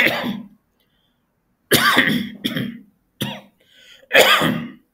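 A man coughing and clearing his throat in a run of about five short bursts, the loudest near the start and about four seconds in.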